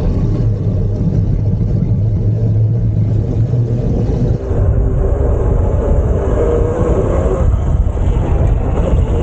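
Riding an e-bike off-road: a loud, steady low rumble with a steady hum through the first four seconds.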